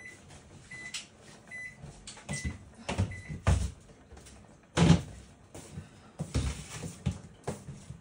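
Kitchen clatter: irregular knocks and thumps of things being handled and set down, the loudest about five seconds in. Over the first three seconds or so, a series of short high electronic beeps sounds, like an appliance's keypad or timer.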